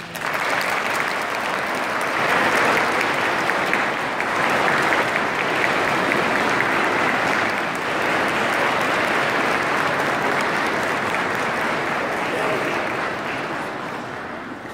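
Audience applauding, starting suddenly as the music stops and dying away over the last couple of seconds.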